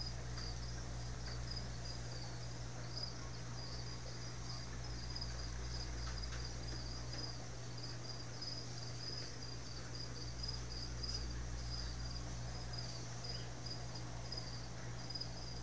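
Crickets chirping continuously, a quick repeating high chirp several times a second, over a low steady hum.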